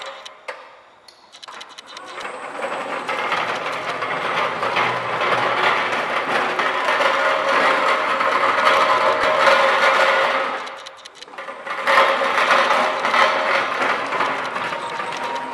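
Linde N20 Li electric pallet truck driving over rough ground: a steady drive hum with the wheels rattling over the surface. It dies away about eleven seconds in, then picks up again as the truck moves off once more.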